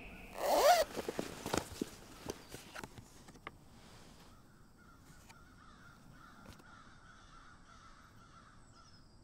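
A single loud, harsh caw-like bird call with a sliding pitch about half a second in, followed by a few soft clicks and, later, faint wavering chirps.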